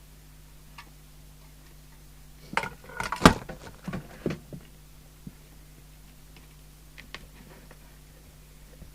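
Clatter of equipment being handled on a bench: a quick run of clicks and knocks a few seconds in, one knock louder than the rest, then a few faint ticks, over a steady low electrical hum.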